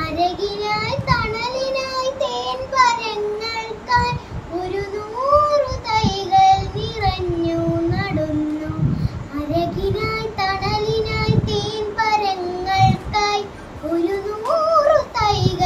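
A young girl singing a Malayalam poem on her own, her voice holding notes and gliding between them.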